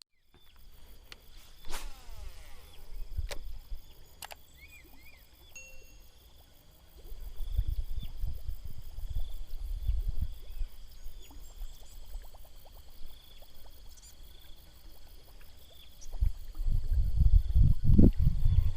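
Outdoor ambience of a steady high-pitched insect drone with a few short chirps and clicks. Low rumbling comes and goes from about a third of the way in and grows loudest near the end.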